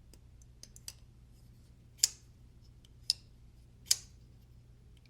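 Ticonic folding knife with freshly fitted Skiff bearings being worked open and shut. There are two faint ticks early on, then three sharp clicks about a second apart.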